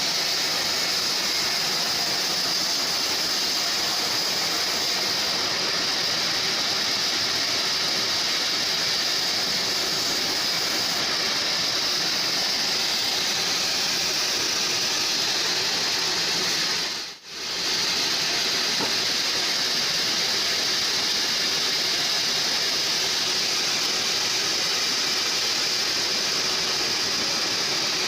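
Homemade band sawmill running steadily, a continuous mechanical noise with a strong high-pitched hiss. The sound drops out for a moment about two-thirds of the way through, then carries on as before.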